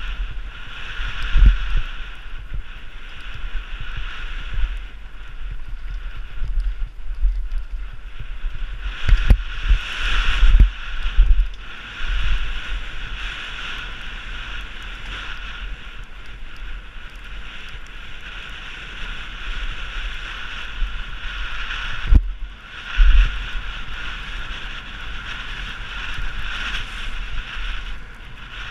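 Downhill mountain bike descending rough trail: steady wind rush on the microphone, broken by irregular low thumps and sharp knocks as the bike hits bumps and drops.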